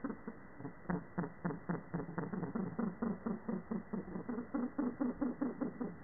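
Flock of cranes calling in flight, played back slowed down so the calls come out deep: a fast, even run of low pulsing calls, about four a second.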